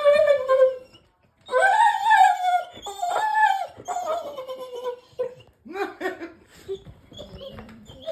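Puppy howling in long, wavering calls that slide down in pitch, then breaking into shorter whimpers and yelps in the last few seconds, as it waits for its owner to arrive.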